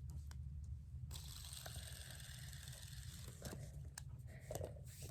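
Silicone poppet fidget spinner spun by hand: a faint whirring hiss for about two seconds, with small handling clicks before and after.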